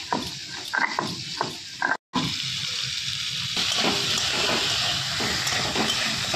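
Garlic being crushed on a flat grinding stone (sil-nora), the stone roller scraping back and forth in quick strokes. After a sudden cut about two seconds in, diced potatoes and pointed gourd fry in oil in a wok with a steady sizzle while a spatula stirs them.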